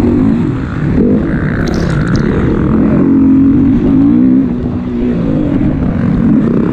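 Enduro dirt bike engine under riding load, its pitch rising and falling again and again with the throttle, over a low rumble.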